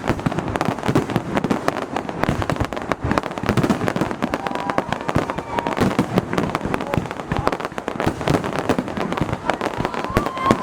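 Fireworks going off at close range, their launch bangs and bursts following one another rapidly and without a break. Crackling bursts are mixed in throughout.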